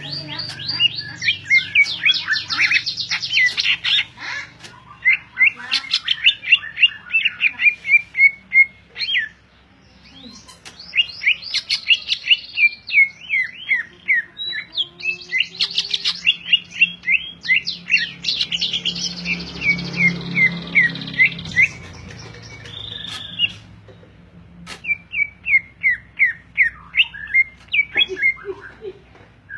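Cucak ijo (greater green leafbird) singing persistently: long runs of quick, sharp chirps and warbles delivered in phrases, with brief pauses between them.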